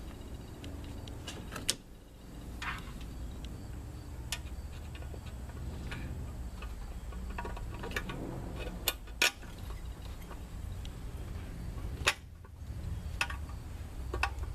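Scattered sharp metallic clicks and taps of hand tools and bolts being handled during work on a transmission, a few louder ones about 2, 9 and 12 seconds in, over a steady low hum.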